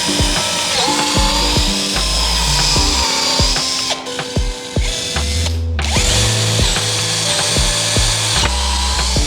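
A power tool's motor whining, its pitch dipping and recovering as it takes load, over background music with a steady beat.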